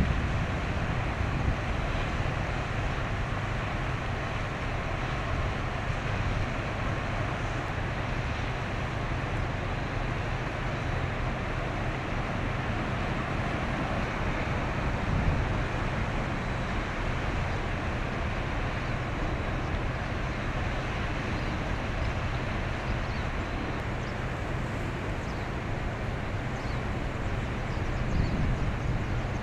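Container ship's diesel engine giving a steady low drone as it passes, over an even hiss of wind and water.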